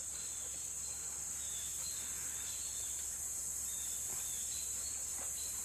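Steady high-pitched drone of an insect chorus, unbroken throughout.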